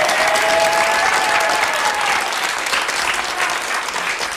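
A small group of people applauding in a room, with voices calling out over the clapping in the first couple of seconds.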